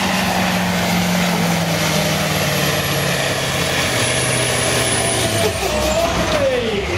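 Supersport pulling truck's diesel engine at full throttle, dragging a weight-transfer sled. Its note sinks slowly as the sled's load builds, then drops more steeply near the end as the engine bogs down.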